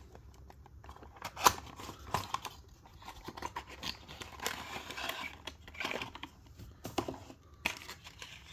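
Packaging of a small diecast model car being opened and handled: rustling and crinkling with scattered sharp clicks and snaps, one louder snap about one and a half seconds in.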